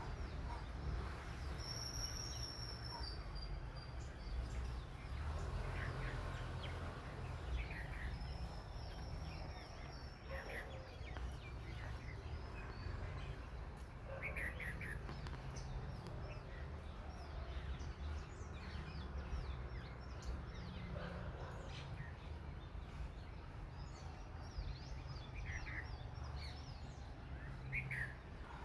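Wild birds chirping and calling, with short scattered chirps throughout and a couple of higher drawn-out whistles about 2 and 9 seconds in, over a steady low background rumble.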